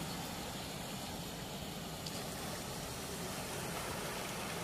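Steady rush of river water pouring through a weir's floodgates: an even, unbroken noise with no rhythm.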